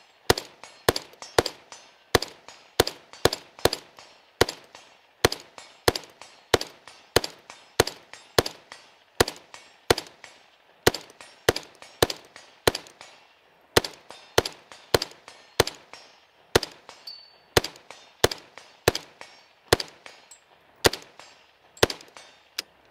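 Unsuppressed CMMG Mk47 rifle in 7.62x39 fired semi-automatically in steady rapid succession, about two shots a second, each shot with a short ringing echo. The rifle is feeding from a 75-round drum magazine and runs without a stoppage.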